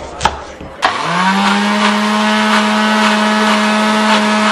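A knife chops once on a cutting board, and about a second in an electric blender starts up. Its motor spins up briefly, then runs at a steady pitch.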